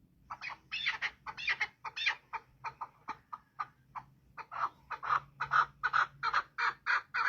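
Partridge calling: a rapid series of short clucking calls, settling into an even run of about three a second in the second half.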